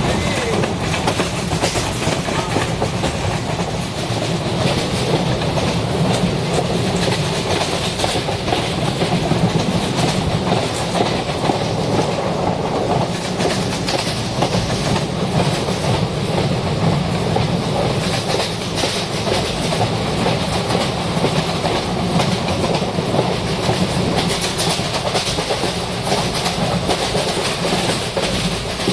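Train running steadily along the track, a continuous rumble with rapid clicking of the wheels on the rails.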